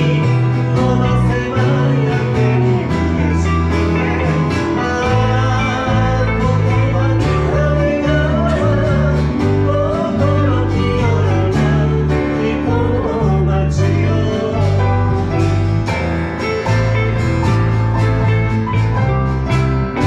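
Live band music: acoustic guitar, piano, lyre, electric guitar and electric bass playing a song together, with a steady bass line and plucked guitar notes.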